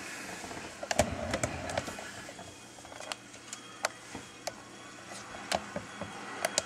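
Irregular sharp clicks and taps over a low background hiss, with a short cluster of knocks and rustling about a second in.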